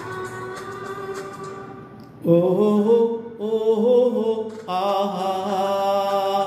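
Karaoke backing track of a Hindi film song plays alone for about two seconds. Then a man's voice comes in loudly, singing long held notes with two short breaks.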